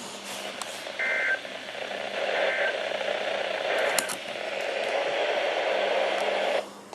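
NOAA Weather Radio receiver hissing with static after a statement ends, with two short warbling data bursts about a second and two and a half seconds in, the SAME end-of-message code. The hiss cuts off just before the end.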